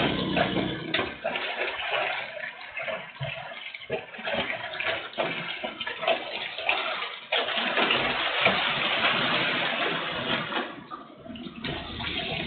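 Heavy rain in wind, heard through a CCTV camera's microphone: water splattering and pouring with many small irregular spatters, then a denser, steady downpour hiss from about seven seconds in that eases briefly near the end.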